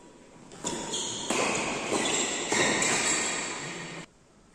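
Sounds of a badminton doubles rally: racket strikes on the shuttlecock and players' footsteps on the court, with sudden hits about a second in and again a little past two seconds, cutting off abruptly about four seconds in.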